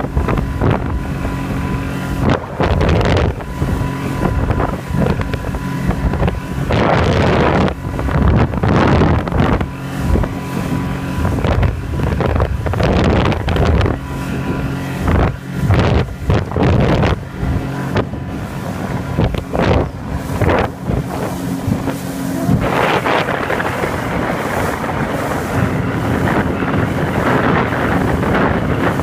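Outboard motor running steadily at planing speed, heard from aboard the boat, with wind buffeting the microphone in irregular gusts. In the last few seconds a steadier rushing of wind and water takes over.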